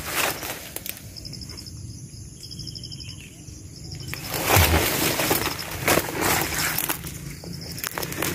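Leaves and branches rustling and footsteps crunching on the forest floor as someone pushes through dense undergrowth, loudest from about four to seven seconds in. Faint high chirping bird calls can be heard in the quieter stretch before that.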